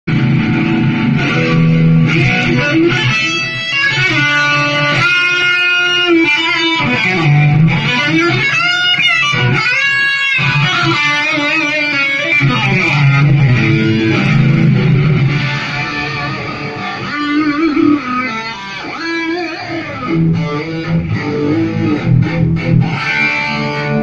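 Electric guitar fitted with EMG pickups played through a Marshall MG100HDFX solid-state amplifier head, for a sound check. The lead line has bent notes and vibrato, and the playing gets somewhat quieter after about 16 seconds.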